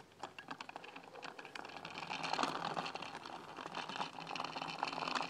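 A child's small bicycle with training wheels rolling over rough asphalt, giving a fast, irregular clatter of little clicks and rattles.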